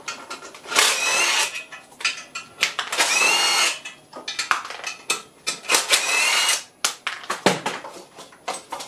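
Cordless power tool spinning out the clutch and flywheel bolts on a Ford 1.0 EcoBoost engine: three bursts of about a second each, the whine rising as each bolt runs free, with clinks and knocks of loose metal parts between them.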